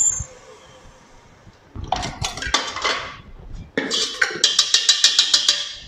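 Wire whisk beating cream by hand in a stainless steel bowl: a fast, even clatter of metal on metal, about eight strokes a second, in the second half. A shorter burst of metal clatter about two seconds in.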